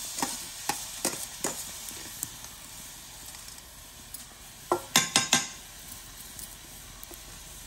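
Washed parboiled rice sizzling as it starts to dry-roast in a hot iron cheenachatti, with a steel spoon clinking against the pan and bowl a few times early on and in a quick cluster about five seconds in.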